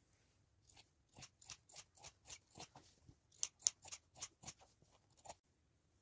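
Scissors snipping through cloth: a run of short, crisp cuts, about three a second, starting about a second in and stopping shortly before the end.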